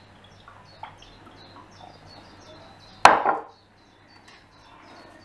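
A glass olive-oil bottle set down on a stone kitchen worktop: one sharp knock about three seconds in, dying away within half a second.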